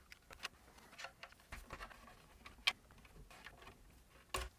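Faint scattered clicks and ticks of plastic speaker trim covers being pried off their clips with a thin metal pry tool, with one louder click near the end.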